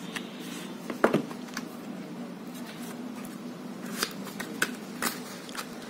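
White cardboard smartphone box handled by hand: the inner tray lifted out with light scraping of card on card and a few sharp taps, the clearest about a second in and between four and five seconds in.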